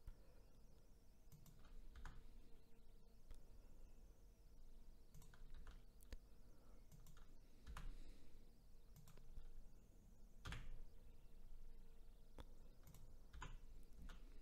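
Faint, scattered clicks of a computer keyboard and mouse, a key or button pressed every second or two, over a faint steady hum.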